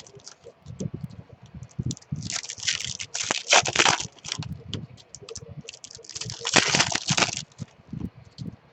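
Plastic wrapping crinkling as card packs are handled, in two rustling bursts about two seconds in and six seconds in, with small clicks between.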